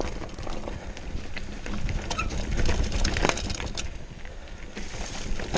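Mountain bike rolling down a rocky trail: tyres crunching over loose stones and the bike rattling over the bumps, with a steady rumble under many small clicks and knocks, loudest about halfway through.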